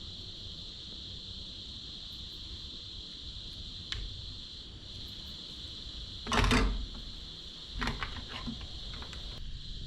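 A steady high-pitched chorus of insects, likely crickets, with a single click about four seconds in, a short loud scuffing clatter about six and a half seconds in, and a run of sharp clicks and knocks near the end.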